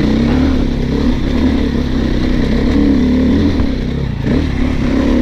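Dirt bike engine running under load, its pitch wavering up and down with the throttle, with a brief dip about four seconds in.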